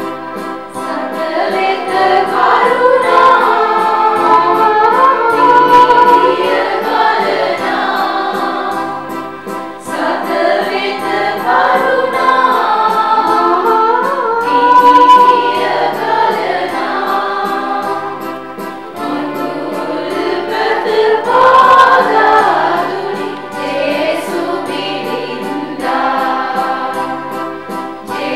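A choir of women and men singing a Christmas carol in unison with instrumental accompaniment, the melody rising and falling in sung phrases over a steady bass line.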